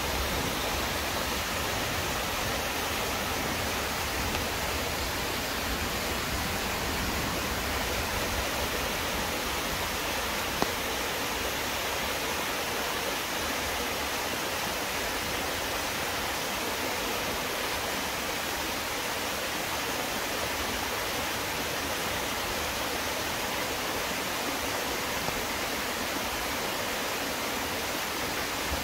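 Chilyeon Falls, a mountain-valley waterfall, pouring steadily in a constant, even roar of falling water. A single short click is heard about ten seconds in.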